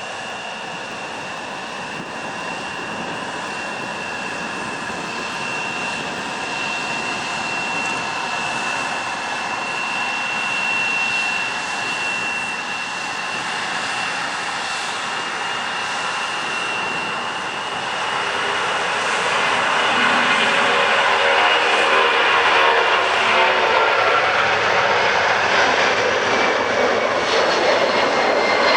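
Boeing 757-200 jet engines at takeoff power: a steady high fan whine over a rushing roar. About 18 seconds in, the roar swells much louder, with tones sweeping in pitch as the airliner goes past.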